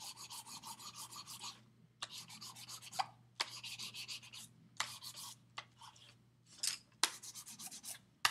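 Stick of white compressed charcoal rubbed flat-side back and forth over black paper: quick scratchy strokes, about five or six a second, in spells of a second or two with short pauses between.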